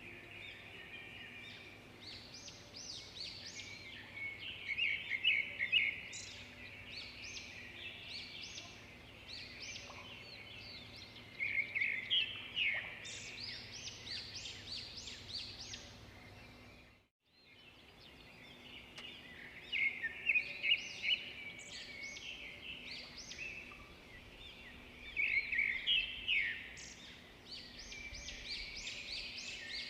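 Birds chirping and singing, a busy chorus of quick high notes in repeated bursts. The sound drops out briefly a little past halfway and then resumes.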